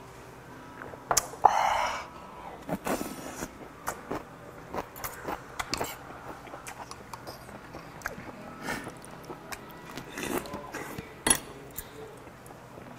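A man eating at a table. About a second and a half in comes a loud breathy exhale right after a shot of soju. Then a spoon and chopsticks click against the bowls, with chewing and slurping in between.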